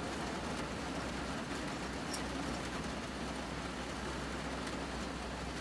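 Rain falling steadily on a van's metal roof, heard from inside as an even hiss, with a faint low hum underneath.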